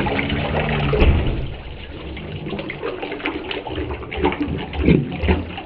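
Toilet flushing: water rushes and swirls in the bowl, easing after about a second and a half into uneven gurgling as the bowl drains.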